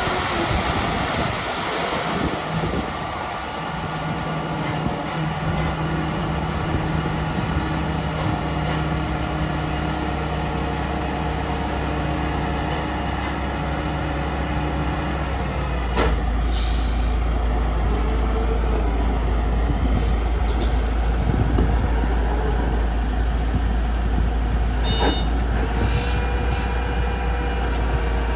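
Engine of a self-loading concrete mixer truck running steadily. About halfway through comes a sudden click and short hiss of air, after which its low hum grows stronger.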